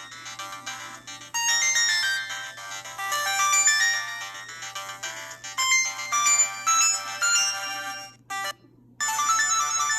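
Samsung GT-E1175T mobile phone playing one of its built-in polyphonic ringtones, a quick melody of short notes. It stops about eight seconds in, and after a brief pause the next ringtone starts near the end.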